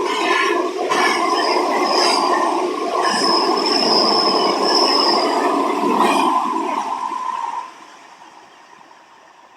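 Great Western Railway Class 800 train running through the station: loud rushing wheel and rail noise with a few sharp clacks and a thin high whine in the middle, dropping away suddenly about seven and a half seconds in as the train clears.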